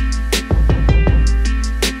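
Background music with deep sustained bass notes and a drum beat.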